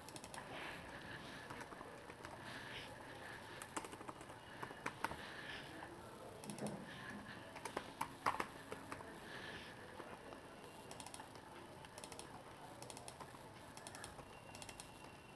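Faint computer-keyboard typing: irregular bursts of keystroke clicks with short pauses between words.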